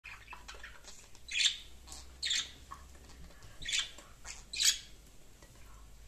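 Budgerigars calling in a cage: soft short chirps, then four loud, harsh calls spaced about a second apart.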